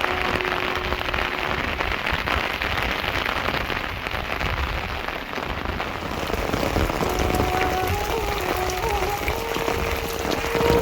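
Steady rain falling. A faint held tone fades out shortly after the start, and faint music with a wavering tune comes in over the rain about two thirds of the way through.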